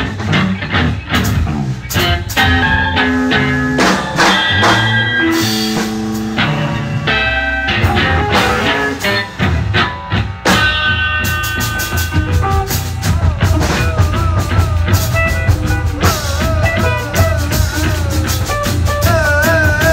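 Live noise-rock band of electric guitars and two drum kits playing an instrumental passage: dense, busy drumming under chiming, sustained guitar notes. About two-thirds of the way through, a wavering, bending pitched line comes in over the drums.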